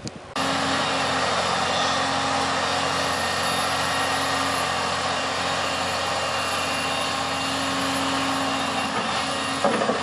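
Caterpillar hydraulic excavator's diesel engine running steadily under load while it digs, with a constant low drone. It comes in abruptly about half a second in.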